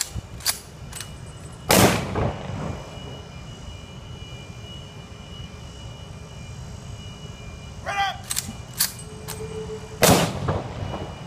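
Honor guard rifle volleys: two sharp simultaneous rifle shots with a short echo, about eight seconds apart, the second preceded by a shouted command and a few sharp clicks.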